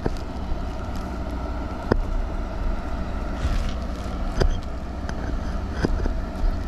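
Wind rumbling on the microphone, with about five sharp clicks and knocks spread through it. The knocks come from a metal axle being worked through the hub of a new wheelbarrow tire, where it is getting hung up on rust.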